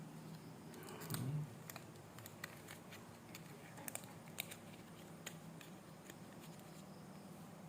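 Sealed plastic RAM packaging being opened and handled by hand: scattered light clicks and crinkles.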